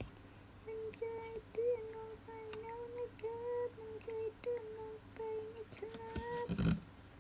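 A person humming a simple tune in short, nearly level notes for about six seconds, followed by a brief louder noise near the end.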